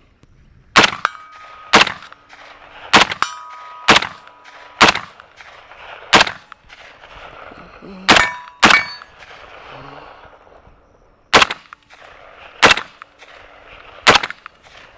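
HK G36C rifle (5.56×45mm) fired one shot at a time: about eleven sharp reports at uneven intervals of one to three seconds. Several are followed by the brief metallic ring of bullets striking steel targets.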